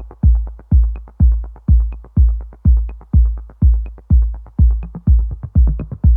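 Electronic dance music: a heavy drum-machine kick about twice a second, with lighter hi-hat ticks between the beats.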